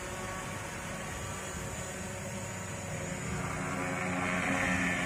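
MJX Bugs B4W brushless quadcopter's motors and propellers humming steadily in flight, growing louder about three and a half seconds in as the drone comes down close for landing.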